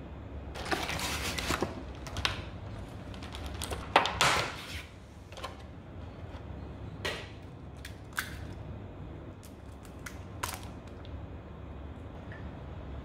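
Kitchen handling sounds: a plastic flour container and a plastic egg carton rustling and crackling, then a few sharp separate clicks and taps as eggs are cracked into a plastic mixing bowl, over a steady low room hum.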